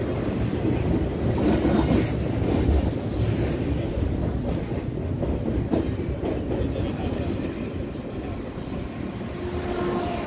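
Double-stack container freight train's well cars rolling past close by: a steady rumble of steel wheels on rail with clickety-clack clicks.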